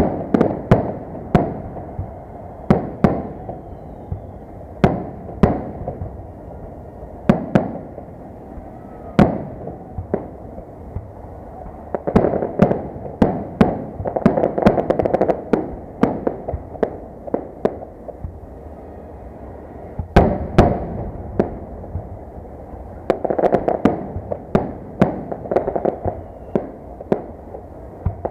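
Victory Day fireworks salute going off: a run of single sharp bangs a second or two apart, with denser rapid volleys of bangs about halfway through and again near the end.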